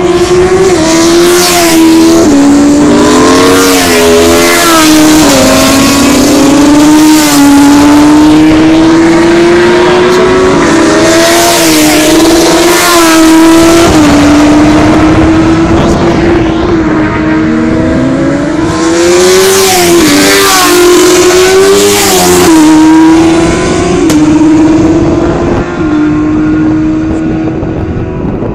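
Superbike racing motorcycles passing at racing speed one after another, each one's engine note rising and then dropping in pitch as it goes by. Engines are heard between the passes too, and the sound fades a little near the end.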